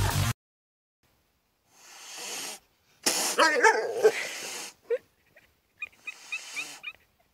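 A pet animal crying: a wavering, pitched call lasting about a second and a half, after a short breathy noise, then a few short high chirps.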